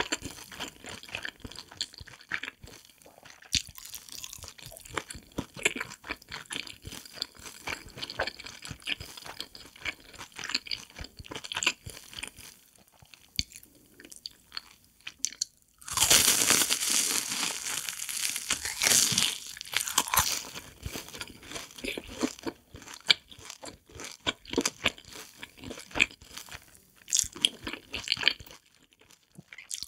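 Close-miked chewing and crunching of crisp fried cheese balls: many small crackles and mouth sounds, with a few seconds of much louder, denser crunching about halfway through.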